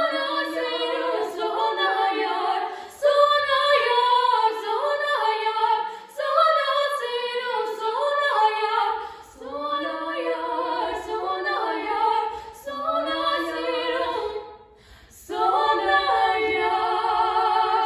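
Two girls singing a cappella as a duet in two parts, in phrases of about three seconds broken by short breaths, with a pause of about a second near the end before a last phrase.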